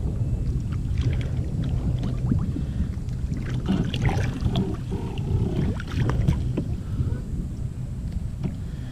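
Water splashing and sloshing around a kayak, with scattered knocks on the hull, as a large redfish is brought alongside. A low wind rumble on the microphone runs underneath.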